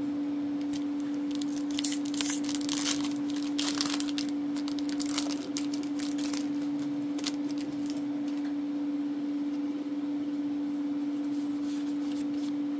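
A booster pack and its trading cards being handled: crisp rustling and clicking, densest in the first few seconds and scattered after, over a steady hum.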